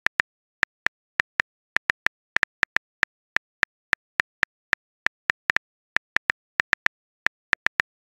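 Phone keyboard typing clicks: a string of short, crisp taps at an irregular typing rhythm, about three to four a second, one per letter typed.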